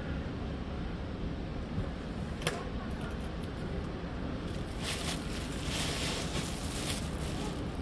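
Steady low outdoor background rumble, with one sharp click about two and a half seconds in and a rustling hiss for a couple of seconds near the end.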